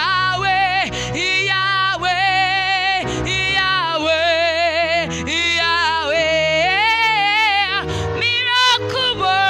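Gospel worship song: a woman sings long held notes with a wavering pitch over sustained low accompaniment chords that change twice.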